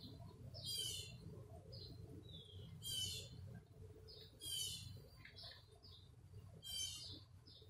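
A songbird singing a short phrase of rapid descending notes, four times, about every two seconds, with softer single chirps between.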